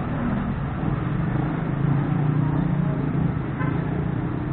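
Street traffic: a motor vehicle's engine running close by, a low hum that swells through the middle and eases off near the end.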